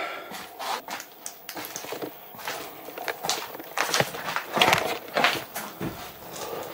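Irregular knocks, crackles and rustles from someone moving about in a small wooden cabin, with the loudest knocks about four to five seconds in.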